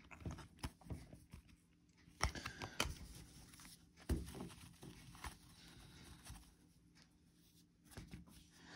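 Faint handling of a stack of trading cards, moved by hand and set down on a cloth table mat, with scattered light clicks, taps and soft rustles.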